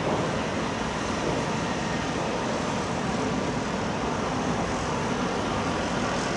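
Steady, even outdoor background noise with no distinct events.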